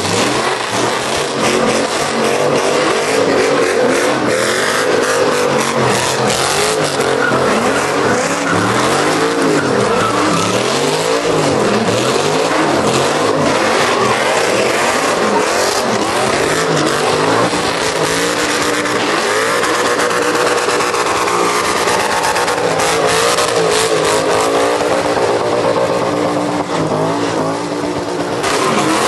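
Pickup truck engines revving up and down again and again while spinning donuts, with the rear tyres squealing and skidding on the pavement in a burnout.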